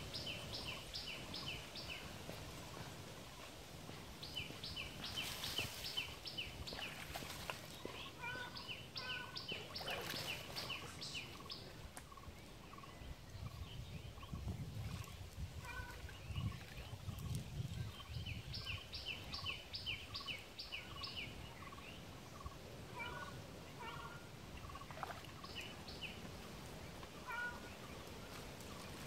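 A bird calling in repeated runs of short, rapid, high notes, each run lasting a second or two and coming back every few seconds.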